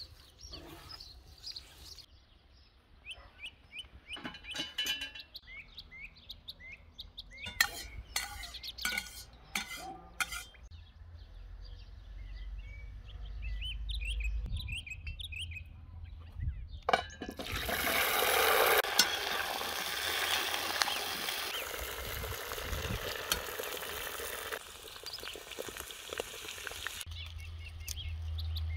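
A long, loud sizzling hiss from the hot cast-iron cauldron on the wood stove lasts about ten seconds and drops off abruptly twice. Before it come scattered light clicks and bird chirps.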